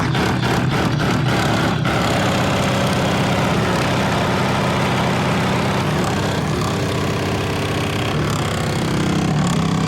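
Car sound system subwoofers, driven by a Taramps 5000 amplifier, playing bass-heavy music at extreme volume, the deep bass overloading the microphone into a steady distorted rumble. A quick run of beats marks the first two seconds.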